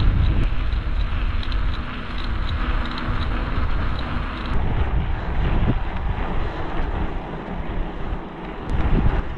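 Wind buffeting the microphone of a camera on a moving bicycle, over a steady rumble from the tyres on a rough track. The sound changes abruptly about halfway through and again near the end, where one clip is cut to the next.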